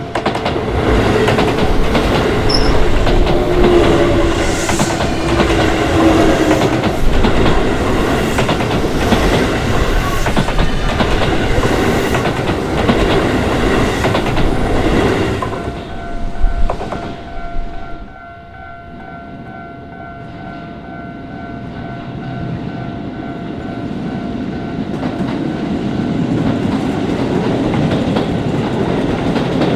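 A commuter train passes over a Japanese level crossing, its wheels clattering rhythmically over the rail joints, and fades away about 16 seconds in. A second train then approaches, growing steadily louder toward the end. The crossing's warning bell rings steadily throughout.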